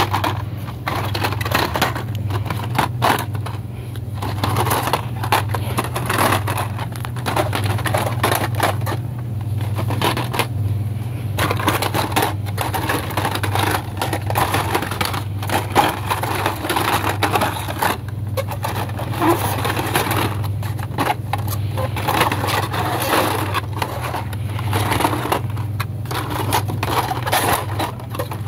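Cardboard-and-plastic blister packs of die-cast toy cars clacking, crinkling and scraping in quick irregular knocks as a hand flips through them on store peg hooks, over a steady low hum.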